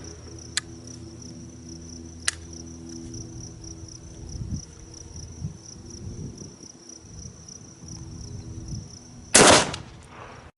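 A single loud shotgun shot from the lower .410 barrel of a Savage Model 42 combination gun, near the end, after two sharp clicks early on. A steady high insect buzz runs underneath.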